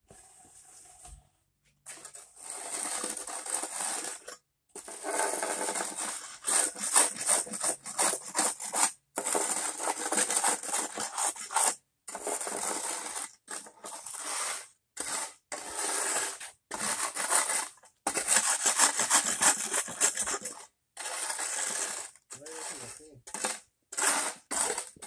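Flat steel shovel scraping sand across concrete pavers in a series of gritty strokes, each a second or two long with short breaks between.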